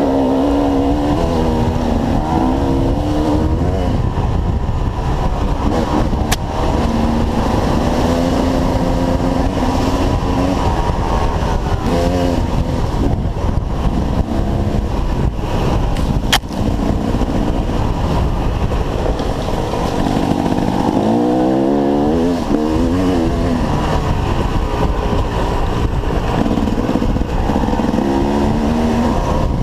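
Dirt bike engines revving up and down again and again over a steady low rumble, with two sharp clicks about 6 and 16 seconds in.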